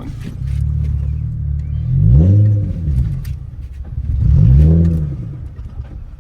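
Nissan 350Z's V6 engine running with a deep exhaust note and revved twice, each rev rising and dropping back within about a second.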